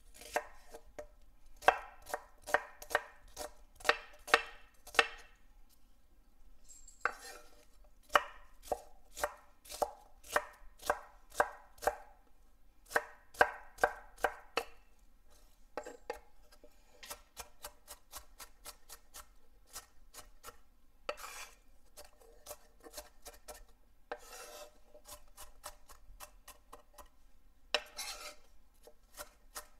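Chef's knife chopping an onion on a wooden cutting board: runs of sharp knife strikes against the board, about two a second, with short pauses between runs. The strokes turn lighter and quicker in the second half as the onion is diced finer.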